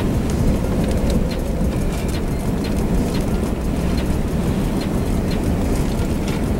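Inside a car driving slowly toward a tornado: a steady low rumble of wind and road noise, with scattered sharp ticks of rain hitting the car.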